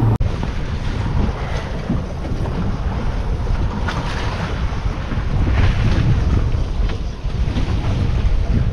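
Wind buffeting the microphone over sea water washing around a small boat.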